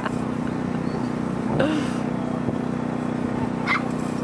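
Lure-coursing machine motor running with a steady hum, pulling the plastic-bag lure along its line. A couple of short yelps sound over it, about a second and a half in and near the end.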